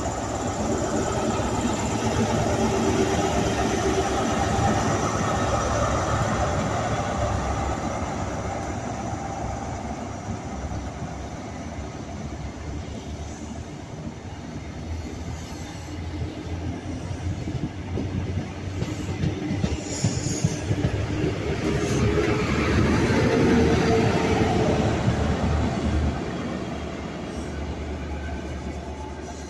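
A High Speed Train with Class 43 diesel power cars pulling out: the leading power car's engine running as it passes, then the coaches' wheels clattering over the rail joints. The noise swells again about three-quarters through, with a faint steady tone, and falls away near the end as the train draws off.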